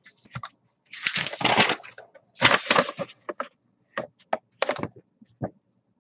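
A sheet of paper being handled: two longer rustles near the start, then several short, sharp crackles.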